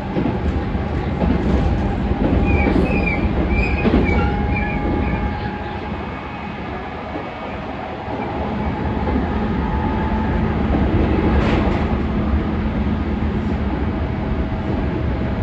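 Cabin running sound of a JR Central 211 series 5000-subseries electric train at speed: a steady rumble of wheels on rail. The level dips briefly a little before halfway, a steady low hum comes in just past halfway, and a single sharp rail-joint click sounds about three-quarters of the way through.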